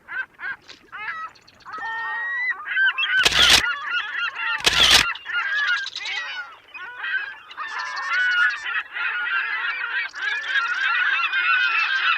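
A flock of birds calling over one another, a dense chorus of short rising and falling calls, with two brief loud noise bursts about three and five seconds in.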